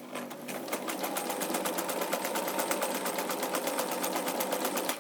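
Necchi sewing machine running and stitching, with a fast, even rhythm of needle strokes that cuts off suddenly near the end. It runs quietly.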